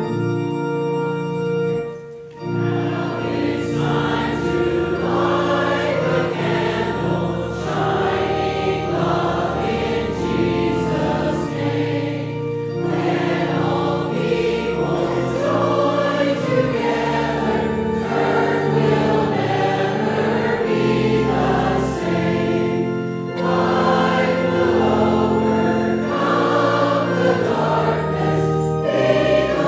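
Church choir singing in parts with organ accompaniment, after a short break about two seconds in.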